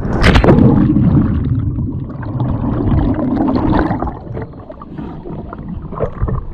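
A loud splash as a person enters a fast-flowing river, then a low, churning rush and gurgle of water right at the microphone as the action camera rides at the surface, easing off after about four seconds.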